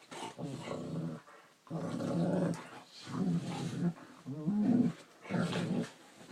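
A dog giving a run of about five drawn-out growling grumbles, one after another with short pauses between, the pitch wavering within each.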